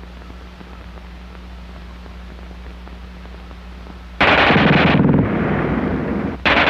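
Old film soundtrack hum and hiss, then two sudden bursts of automatic gunfire: one about four seconds in, loud at first and then trailing on for a couple of seconds, and another starting near the end.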